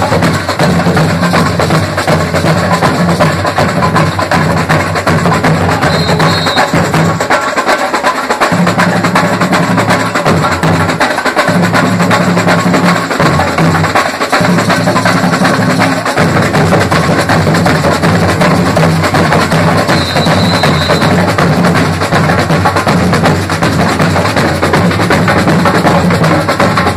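Samba bateria playing: large metal surdo bass drums and snare drums beating a dense, driving carnival groove. The deep surdo pattern drops out for a moment a few times in the first half while the higher drums carry on.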